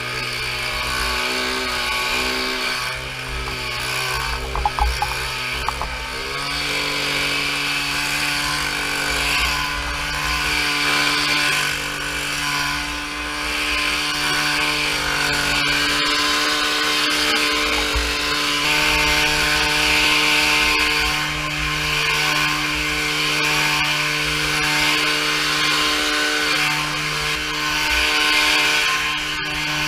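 Leaf blower running steadily, its engine note stepping up in pitch about six seconds in and dipping briefly near the end.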